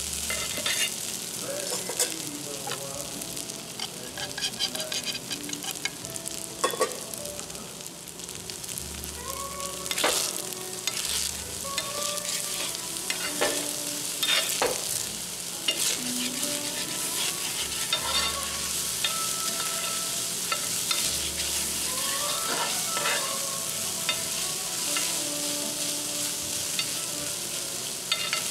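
Fried rice sizzling on a teppanyaki griddle, with metal spatulas scraping and clicking against the hot plate as it is stirred and chopped. Sharp clicks and short ringing notes come at irregular moments over the steady sizzle.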